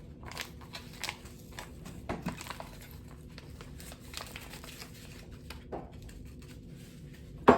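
Paper hot chocolate mix packet crinkling and rustling as the powder is poured out into a mug, with scattered small clicks and one sharp knock near the end.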